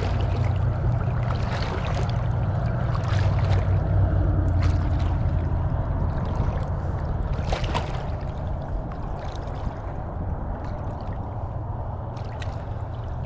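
Water lapping at the shoreline under a steady low rumble that eases off over the last few seconds, with a few light clicks.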